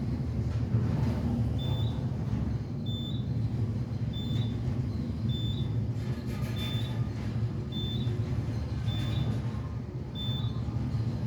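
Elevator car running with a steady low rumble, while a short high-pitched beep sounds at an even pace, about once every 1.2 seconds.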